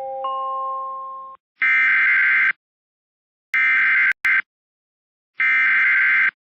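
The tail of a chime fades out. Then come three one-second bursts of the Emergency Alert System's digital header tones, the Specific Area Message Encoding data that sends a special marine warning. The second burst briefly drops out near its end.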